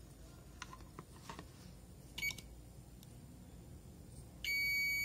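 Digital multimeter continuity buzzer: a brief beep about two seconds in, then a steady high beep starting near the end as the probes find a connection from the capacitor to the USB supply pin. A few light clicks come before it.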